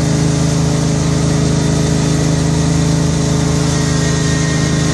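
Small engine of a trackless tourist train running steadily with a fast, even pulse, heard from a passenger car as the train rolls along.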